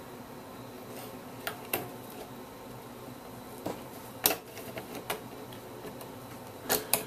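A handful of sharp, scattered clicks and taps from a metal hook tool and small metal and plastic parts in a GAF Super 8 projector's exposed belt-and-pulley mechanism, as a tension spring is hooked back on by hand. The loudest click comes a little past four seconds in.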